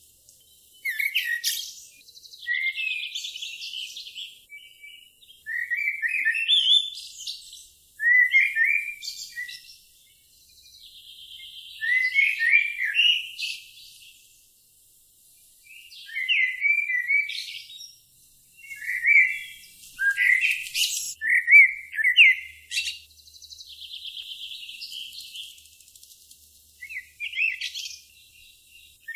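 Songbird singing: repeated phrases of high chirps, quick sweeps and short buzzy trills, each a second or two long, with brief pauses between them.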